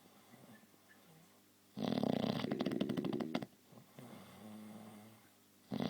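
Loud snoring: a long rattling snore about two seconds in, then a softer pitched breath, and the next rattling snore starting near the end.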